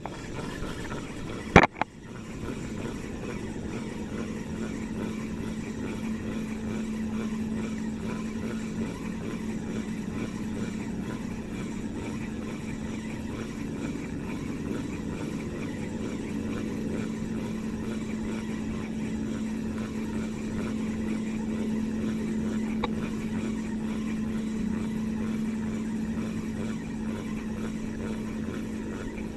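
A small boat engine running with a steady hum, with one sharp knock about a second and a half in.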